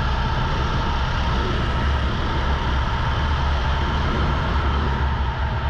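Rental go-kart engine running at steady high revs under race load, with no speech.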